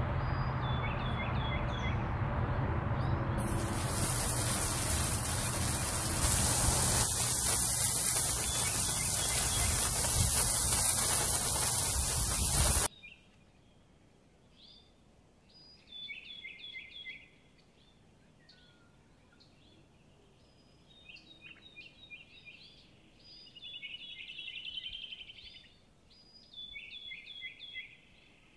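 Loud, steady rush of water spraying onto a cast-metal patio table as it is washed, growing louder twice before cutting off suddenly about 13 seconds in. After that, small birds chirp in short repeated calls.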